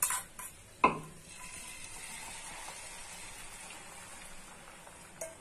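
Chicken omelette batter poured onto a hot, oiled cast-iron tawa, frying with a steady sizzle that starts just after a sharp clink about a second in.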